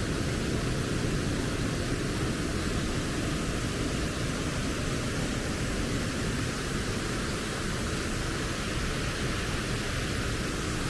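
Steady rushing noise of rain and flowing spring water, even and unbroken throughout.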